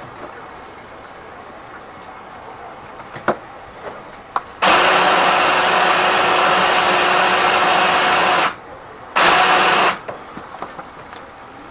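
Flexshaft drain-cleaning machine's motor spinning its cable in a clogged kitchen drain pipe: it runs steadily with a high whine for about four seconds, stops briefly, then runs again for under a second. Before it starts there are only a few faint clicks.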